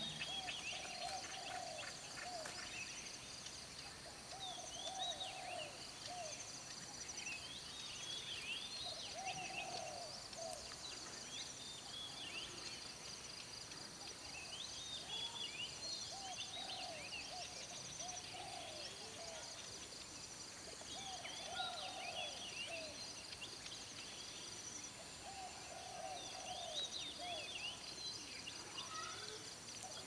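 Early-morning dawn chorus of wild birds: a low hooting call of a few notes repeats every few seconds beneath many higher chirps and whistles from other birds. A steady high insect buzz runs underneath.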